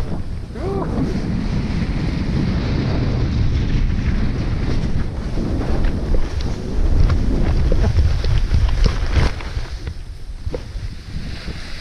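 Wind buffeting the microphone of a camera worn by a paraglider pilot, a heavy low rumble that gusts up stronger after the midpoint and eases near the end.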